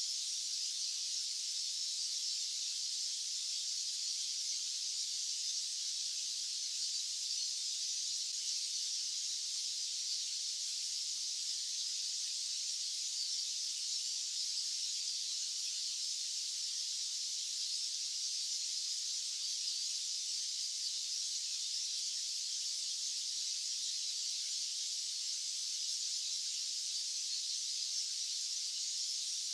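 White-noise sound track: a steady, high-pitched hiss with its weight in the treble and no low end. It neither rises nor falls.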